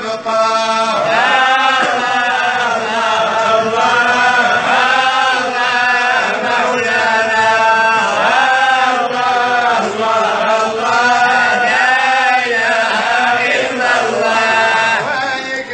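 Islamic religious chanting (madih and supplications) on the soundtrack: a voice singing long phrases that bend up and down over a steady low drone.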